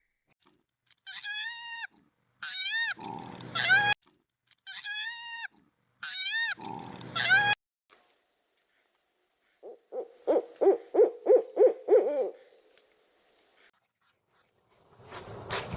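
A series of animal calls. A two-part call with bending pitch is heard twice. Then a steady high tone runs for several seconds, with a rapid run of about eight low pulses partway through it, and a new, louder call begins near the end.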